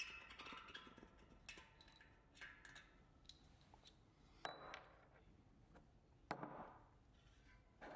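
Faint clicks and light clinks of bicycle hub parts and bearing press tools being handled during bearing installation, with two louder knocks about four and a half and six seconds in.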